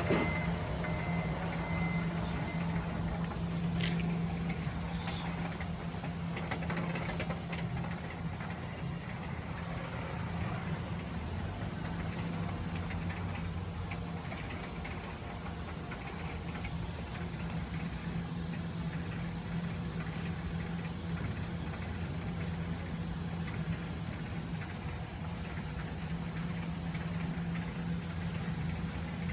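A motor vehicle engine idling with a steady low hum and faint street noise, with a couple of sharp clicks about four and five seconds in.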